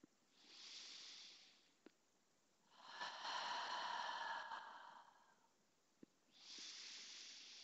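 Slow, deep breaths of a woman doing a breathing-focused Pilates exercise: three audible breaths, the middle one the longest and loudest.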